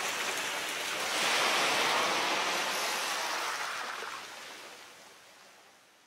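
Sea surf washing onto a beach, a steady rush of waves. It swells about a second in, then fades away over the last two seconds.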